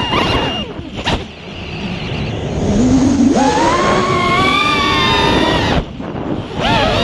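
Freestyle racing quadcopter's ZMX V3 brushless motors spinning 5-inch three-blade props, whining as the throttle changes: the pitch drops away about a second in, climbs again at about three seconds, holds, then dips briefly near six seconds before rising again. A short sharp click about a second in.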